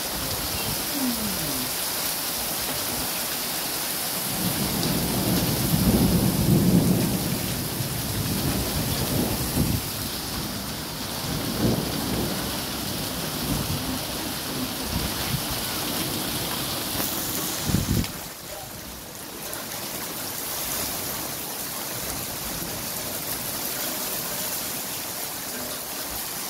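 Heavy rain pelting the ground in a steady hiss. A low rumble of thunder swells about four seconds in and dies away over several seconds, and a sharp knock sounds a little past the middle.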